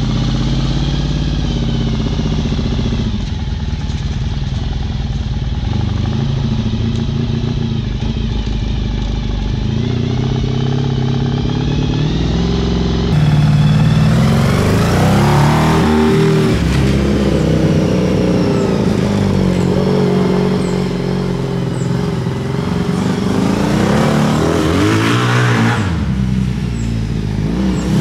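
Honda VF1000 V4 motorcycle engine powering a home-built dune buggy on a test drive, running steadily at first, then louder with the engine note rising and falling as it is revved and throttled off twice.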